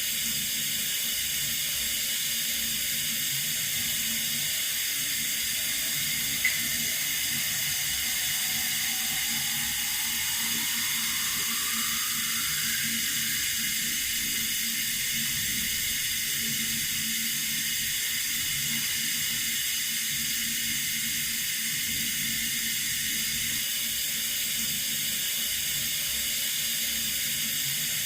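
Water running steadily from a tap, an even hiss. There is one short click about six and a half seconds in.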